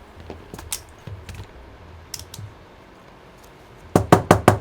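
A few scattered light clicks, then about four seconds in a quick run of sharp hard plastic clicks or taps, about five a second, from handling the Apple keyboard during its repair.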